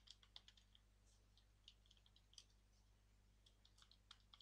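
Faint computer keyboard typing: a scatter of irregular single keystrokes as a password is entered, over a low steady hum.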